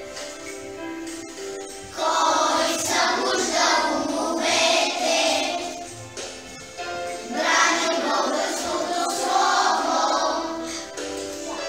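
Group of children singing together over an instrumental backing track. A short instrumental passage with held notes plays first, and the voices come in about two seconds in, with two brief pauses between phrases.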